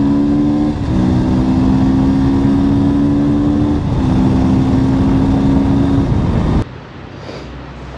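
Motorcycle engine accelerating hard, its pitch climbing and dropping sharply as it shifts up a gear at about one second and again near four seconds, then easing off; near the end it cuts abruptly to quieter wind noise.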